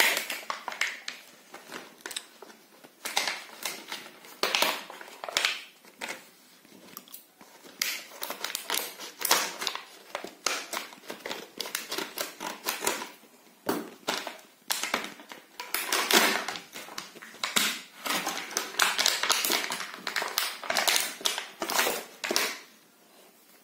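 Irregular clicks, taps and plastic rustling of small objects being handled up close: a laptop-cleaning kit being unpacked and set out.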